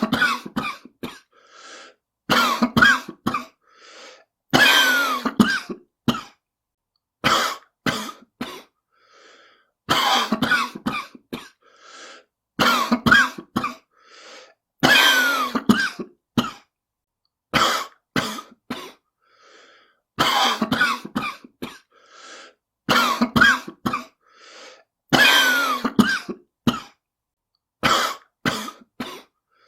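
A person coughing over and over, in harsh bouts of several coughs that come every two to three seconds: a smoker's cough.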